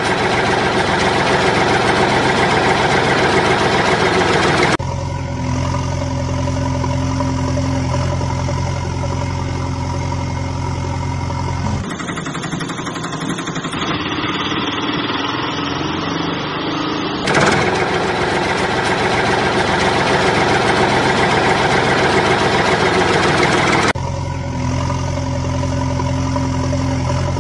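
A vehicle engine running, edited in over the toys. It cuts abruptly several times between a loud, rough stretch and a steady low idling hum.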